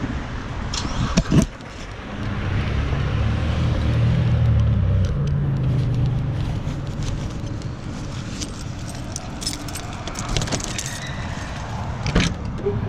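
Car engine and road noise inside a moving car, swelling a couple of seconds in as the car picks up speed, then running steadily, with a few sharp clicks and rattles.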